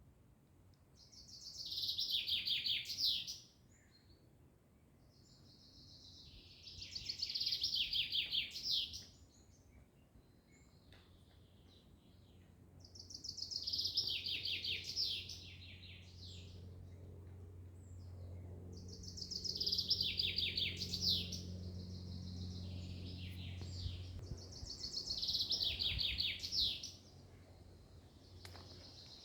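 A songbird singing the same phrase five times, one about every six seconds. Each phrase is a fast trill of about two and a half seconds that falls in pitch towards its end.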